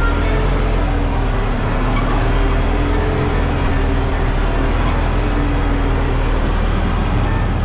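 Arbos tractor's diesel engine running steadily under ploughing load, heard from inside the cab as a constant low drone.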